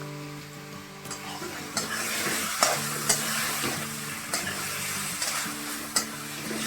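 Food frying and sizzling in hot oil in a pan while it is stirred with a spatula, which knocks sharply against the pan about five times.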